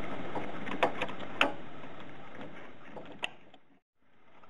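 Three short, sharp clicks and taps from hands handling the radiator hose and fittings under the hood, over a steady hiss that fades away near the end.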